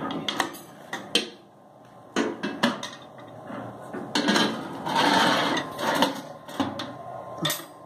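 Wire grill rack of an Anex oven toaster knocking and scraping against the oven's metal cavity as it is taken out and handled: scattered sharp metal clicks and knocks, with a longer scraping stretch a little past the middle.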